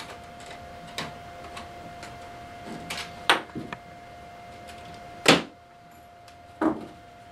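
A small flathead screwdriver prying metal tabs and a bus bar out of the underside of a plastic FasTrack curve track section: several sharp metal clicks and scrapes, the loudest a little past five seconds in.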